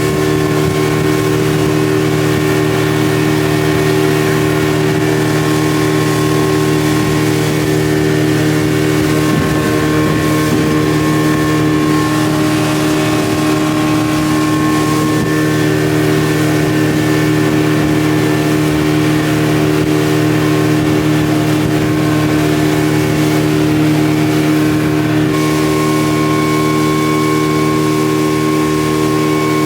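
An engine running steadily: a loud, even drone of several held tones that neither rises nor falls.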